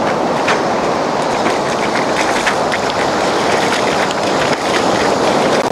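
Steady rushing of surf breaking on a sandy beach, with scattered light ticks and crackles over the wash.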